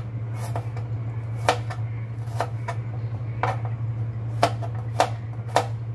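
Kitchen knife slicing garlic cloves on a plastic cutting board: about eight sharp knife taps against the board at uneven intervals, over a steady low hum.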